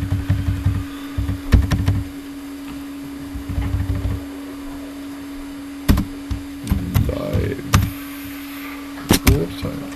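Typing on a computer keyboard: scattered key clicks and dull thuds, over a steady low hum.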